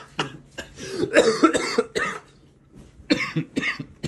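A person coughing in short bursts, one spell in the first two seconds and another shorter spell near the end.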